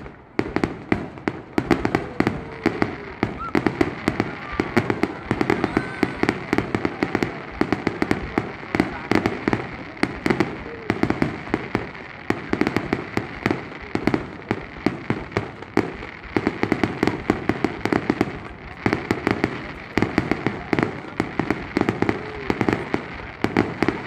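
Fireworks going off in a rapid, unbroken crackle of many small sharp bangs, several a second.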